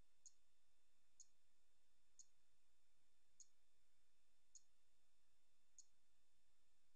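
Near silence with six faint, sharp, high clicks, about one a second.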